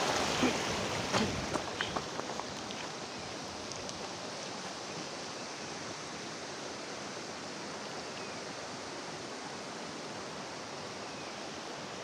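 Steady rush of flowing stream water, with a few light clicks in the first couple of seconds.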